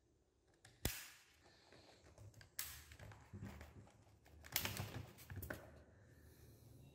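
Plastic clicks and scraping as a laptop battery is unlatched and slid out of its bay: a sharp click about a second in, then further bursts of clicking and sliding about two and a half and four and a half seconds in.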